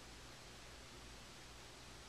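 Near silence: room tone, a steady faint hiss with a low hum underneath.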